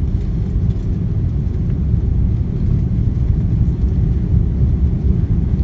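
Steady low rumble inside a jet airliner's cabin on final approach to land: engine and airflow noise heard from a window seat over the wing.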